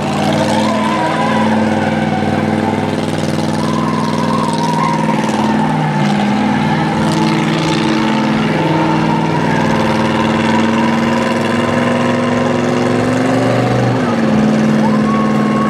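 Hot rod engine held at high revs during a smoky burnout, its rear tyres spinning on the tarmac. The engine note wavers throughout and dips slightly about fourteen seconds in.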